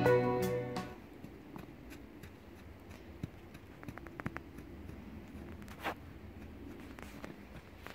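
Guitar music fading out in the first second, then faint crunches and scrapes of boots pushing and packing snow, a few short ones clustered together about four seconds in.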